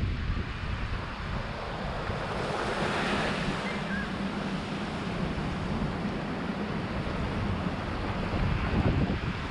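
Wind buffeting the microphone over the wash of sea waves, the surf swelling louder about three seconds in.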